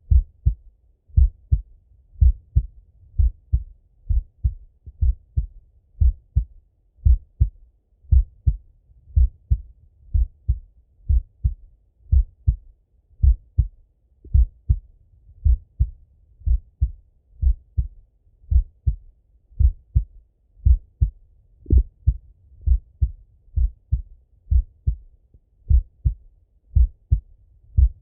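A man's heartbeat heard through a Littmann stethoscope: a slow, steady lub-dub, each pair a strong and a softer thud, deep and dull with little above the low range.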